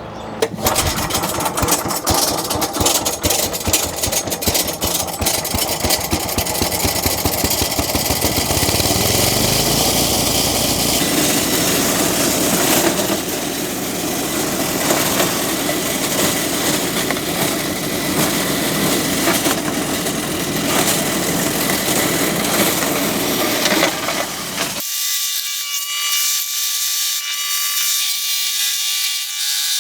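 Masport 5 hp wood chipper running under load, its engine and freshly sharpened flail hammers shredding yard debris, with rapid clattering impacts for the first ten seconds or so. Near the end the sound switches abruptly to a thin, steady whine with no low end.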